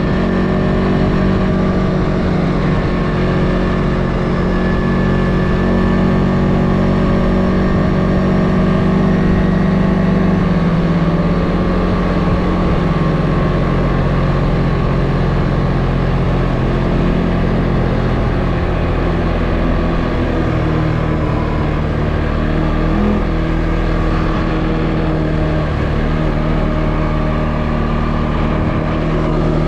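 CFMoto ATV engine running steadily under way, its pitch easing down a little about a third of the way in and rising again near the end.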